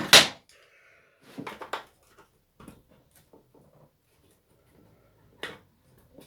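Clicks and knocks of hand work on a strimmer, with plastic parts and tools being handled: a loud knock at the start, a quick cluster about a second and a half in, a few light ticks, and one sharp knock near the end.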